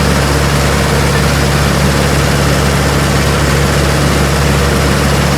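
Diesel tractor engine running steadily at an even speed, with a deep, constant hum.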